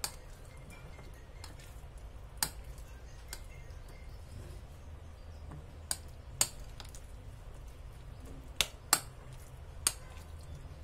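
Metal spoon stirring a thick semolina batter in a glass bowl, clinking against the bowl's side about eight times at irregular intervals. A low steady hum runs underneath.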